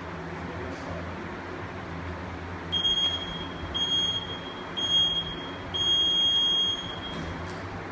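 Gym workout timer counting down: three short high beeps about a second apart, then one longer beep, the usual signal to start. A steady background hum runs underneath.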